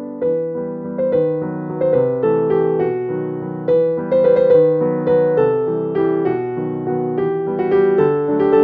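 Background piano music: a gentle melody of struck notes over soft chords.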